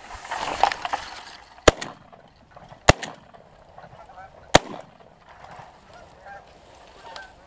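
A flock of Canada geese honking loudly as they flush, then three shotgun shots over about three seconds, with more scattered honking after them.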